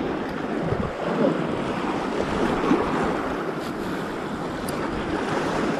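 Sea waves washing against a rocky shore, a steady rushing noise, with wind on the microphone.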